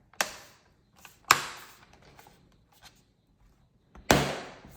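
Plastic snap-fit clips of the HP Envy x360 laptop clicking into place as a part is pressed back on. There are three sharp snaps, at the start, a second later and near the end, with lighter clicks in between.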